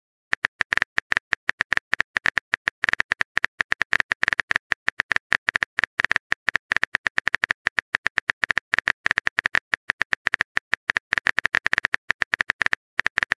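Simulated phone-keyboard typing sound effect: rapid, irregular key clicks, several a second, that stop shortly before the end.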